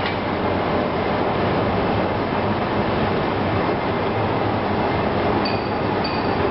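Roller briquette press running steadily under load, its rolls pressing powder into pillow-shaped briquettes that drop onto a pile: a loud, even mechanical rumble. Near the end, short high-pitched squeaks begin repeating a little under twice a second.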